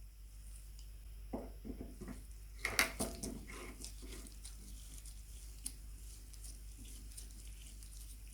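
Small clicks, taps and light clinks from parts being handled at a workbench, scattered irregularly, with the loudest cluster of clinks about three seconds in.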